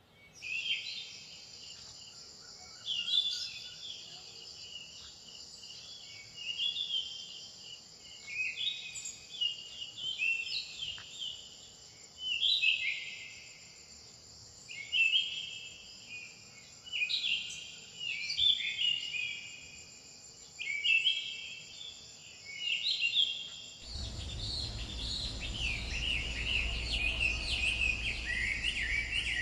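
Forest ambience: songbirds singing short repeated phrases every two to three seconds over a steady high insect drone. Near the end a low steady rumble comes in abruptly and the birdsong thickens.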